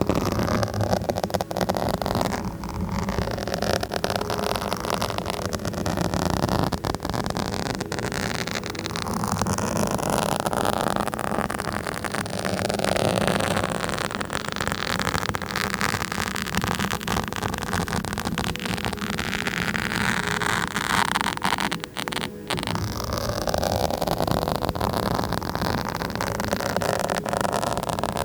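Continuous scratching directly on a microphone: dense, crackly rubbing noise that swells and shifts without pause, with a brief drop about 22 seconds in.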